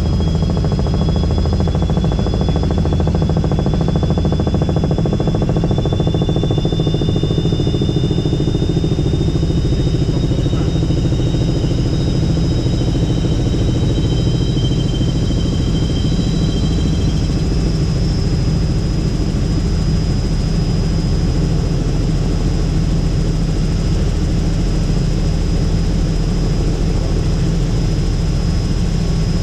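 Robinson R66 helicopter in flight: steady heavy rotor and turboshaft engine noise, with a faint high turbine whine over it.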